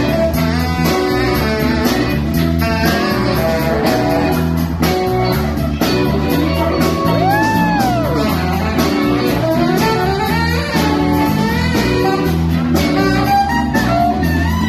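Live saxophone solo in an R&B/funk tune over a band with drums and guitar. About seven seconds in, a held sax note bends up and back down.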